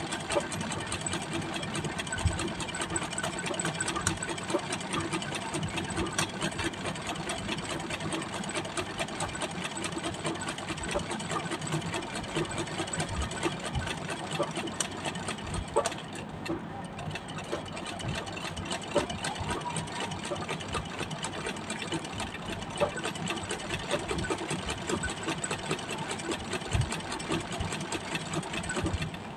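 Straight-stitch treadle sewing machine running fast and steadily, a rapid even clatter of the needle bar and mechanism as it stitches free-motion embroidery through hooped sheer fabric. It dips briefly about halfway through, then runs on.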